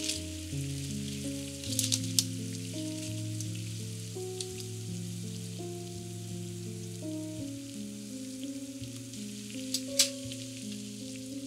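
Water boiling hard in a pan, a steady bubbling hiss as greens blanch, under soft background music of slow sustained notes. A few light taps come about two seconds in and again near the end, as chopsticks work the greens in the pan.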